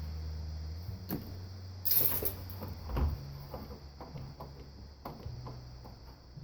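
Handling noises from taking apart a desktop computer case: a scrape about two seconds in, a knock a second later, then a string of small clicks and taps of plastic and metal parts, over a steady low hum.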